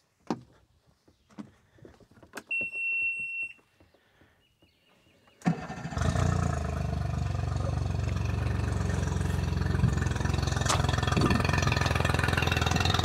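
Mercury 40 hp outboard started on flushing muffs: a steady high beep about a second long, then a few seconds later the motor cranks and catches and settles into a steady idle.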